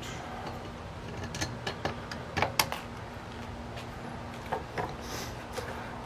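Scattered light clicks and knocks of hand tools and mounting hardware being handled, as a screwdriver is picked up and the parts of a kayak outrigger mount are moved about. The clicks come in two clusters, one about two seconds in and a shorter one about five seconds in.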